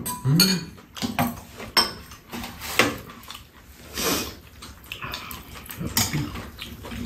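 Close-up eating sounds of rabokki (ramen noodles with rice cakes): noodles slurped and chewed, with chopsticks clicking against the bowls now and then. A short hummed "mm" comes just after the start.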